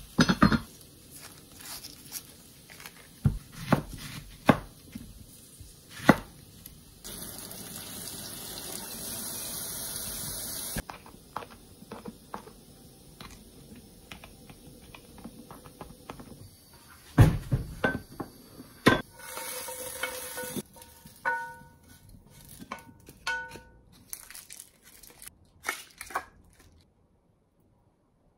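Kitchen prep sounds on a wooden cutting board: a knife knocking and clicking as an onion is peeled and sliced into rings, with potatoes frying in a pan beside it. A steady hiss runs for a few seconds near the middle, and a cluster of sharp knocks comes a little past halfway.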